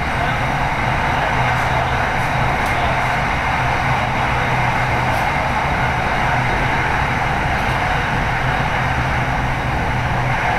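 Steady running noise inside an electric commuter train moving at speed: wheels on rail with a low, even motor hum.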